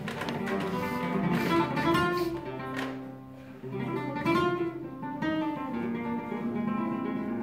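Flamenco guitar played solo: plucked melodic runs broken by strummed chords, briefly quieter about three seconds in.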